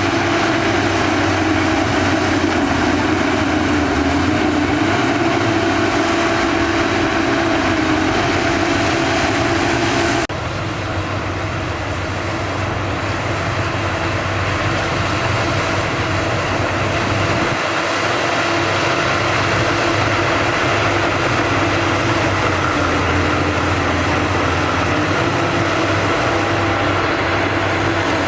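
Shantui DH17 B2 crawler bulldozer's diesel engine running steadily under load while it pushes sand. The sound changes abruptly about ten seconds in and then carries on.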